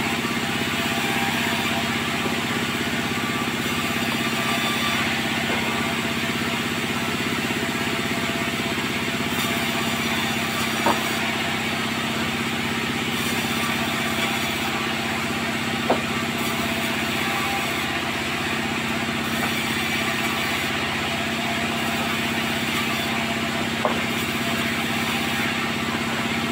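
Sawmill machinery running steadily with an even engine-like hum, broken by three short sharp knocks.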